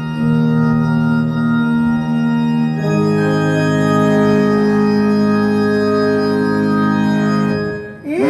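Electronic keyboard playing sustained organ chords, moving to a new chord about three seconds in and cutting off just before the end.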